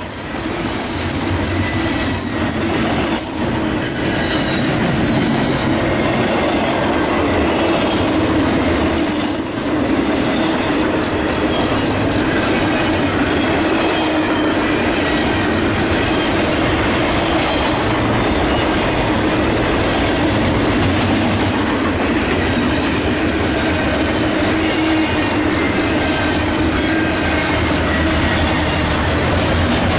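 Double-stack intermodal well cars rolling past at speed: a loud, steady rumble of steel wheels on rail, with faint high wavering squeals from the wheels.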